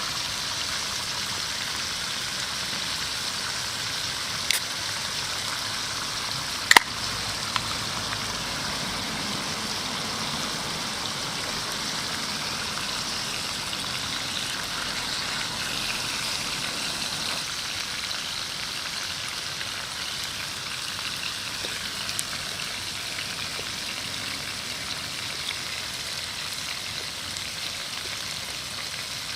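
Food sizzling on a grill over a wood fire in a homemade Picogrill-style fire pit: a steady hiss broken by a few sharp pops, the loudest about seven seconds in.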